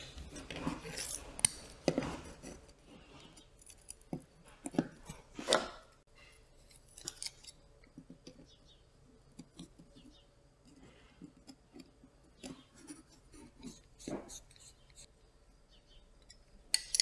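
Scattered light clicks and taps of small parts being handled: a brushless drone motor, its mounting screws and a small hex driver, with a few louder taps among them.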